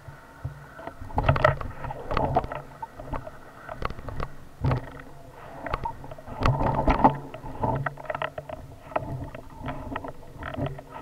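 Mountain bike going downhill over loose volcanic gravel and rocks: tyres crunching over stones, with a rumble and irregular knocks and rattles as the bike jolts over the bumps, heaviest about a second in and again past the middle.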